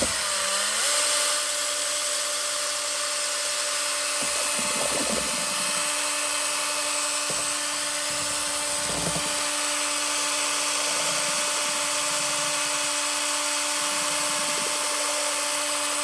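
Electric drill spinning a paddle mixer in a metal can of catalyzed primer, during the five-minute mix after the catalyst is added. It starts right at the outset, settles to a steady speed within the first second, then runs with an even whine.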